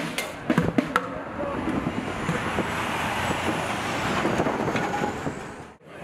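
City street traffic with a heavy truck driving close past. A few sharp clicks and knocks in the first second, then a steady rushing noise that cuts off abruptly near the end.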